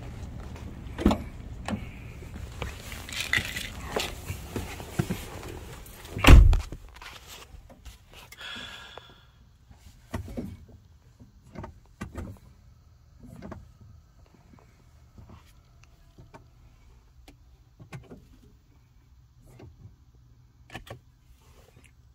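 Handling and rustling noise, then a car door on the 2014 Prius Plug-in shutting with a heavy thunk about six seconds in, followed by scattered light clicks and knocks inside the car's cabin.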